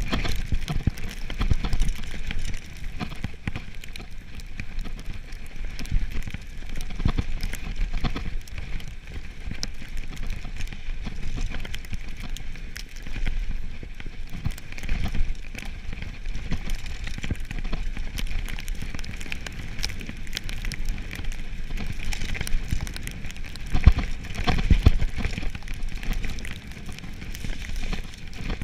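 Mountain bike riding fast down a snowy trail: steady tyre noise and rattling over the rough, frozen surface, with thumps as the bike hits bumps and a cluster of harder knocks a few seconds before the end. Wind rumbles on the microphone.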